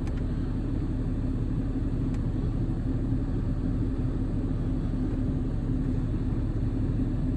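6.7-litre Cummins inline-six turbo diesel of a Ram 5500 idling steadily, a low even rumble with a constant hum, with a faint click or two.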